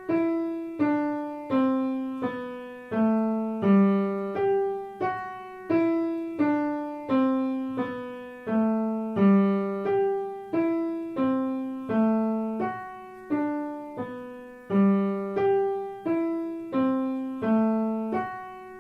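Piano playing a simple beginner's melody one note at a time at a slow, steady pace. Each note rings and fades before the next, moving between the G below middle C and the G above it, with the hands taking turns.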